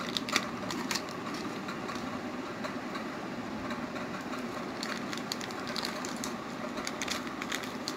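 Electric fan running steadily, with a few light clicks and taps in the second half.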